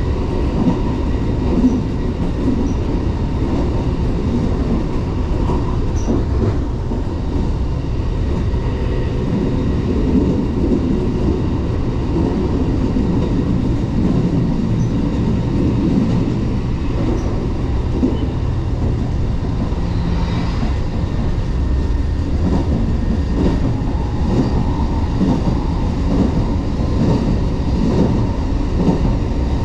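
Interior running noise of a 381 series electric train at speed, heard from near the door: a steady heavy rumble of wheels on rail with a repeating clatter over rail joints.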